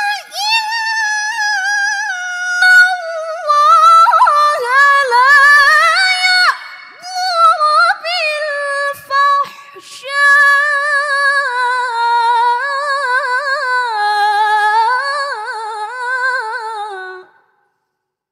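A young woman's melodic Quranic recitation (tilawah): long, high-pitched melismatic phrases with quavering ornaments, briefly softer about halfway through, the pitch sinking lower in the closing phrase before she stops near the end.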